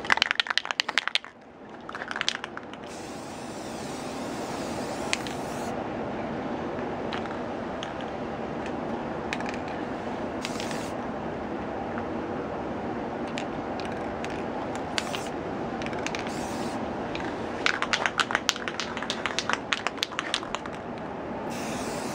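Aerosol spray can laying a clear finish onto a carved stone pipe in short hisses, the longest about three seconds in. Bursts of quick rattling clicks near the start and again near the end are the loudest sounds.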